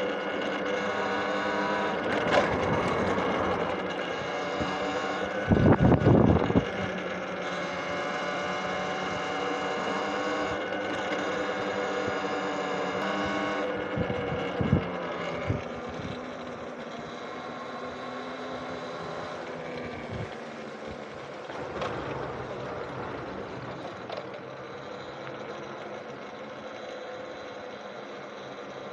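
Electric bike's motor whining steadily while riding a trail, with a loud low buffeting burst about six seconds in and a few sharp knocks a little later. The whine gets quieter in the second half.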